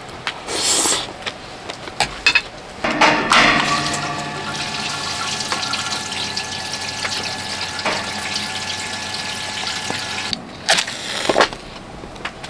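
Kerosene being pumped into a Toyotomi Omni heater's fuel tank: a steady flow of liquid with a pump's even whine that lasts about seven seconds and then cuts off suddenly. A few short knocks come before it and a couple after.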